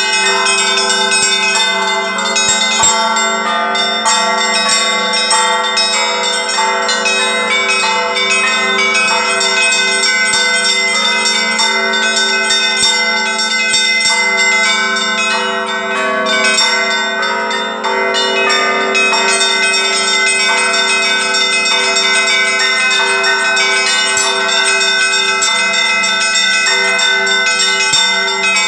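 Russian Orthodox church bells rung together (zvon). A steadily repeating middle bell sounds under quick, overlapping strikes of smaller, higher bells. The ringing is continuous and even, with no pause.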